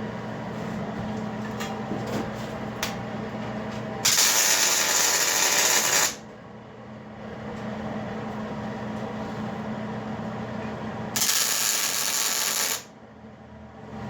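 Two short arc-welding tack welds on steel plate, each a loud crackling hiss lasting about two seconds, one about four seconds in and one near the end. A steady machine hum sits underneath.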